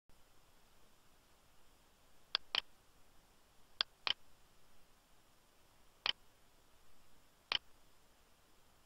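Computer mouse button clicking six times, the first four in two quick pairs, over a faint hiss.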